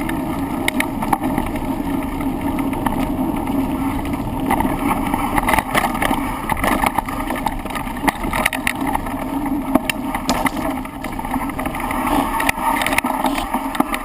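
Handlebar-mounted camera on a bike moving fast downhill: steady wind rush and road or trail noise, with frequent short knocks and rattles as the bike jolts over bumps.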